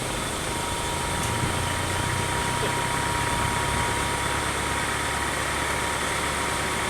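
An engine idling steadily, with a thin steady whine above its low hum.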